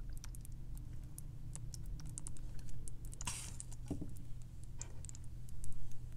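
Thick blue cornstarch paste poured onto a moulded block of gym chalk, with many small light clicks and crackles scattered through, a short rush of noise about three seconds in and a soft knock just after.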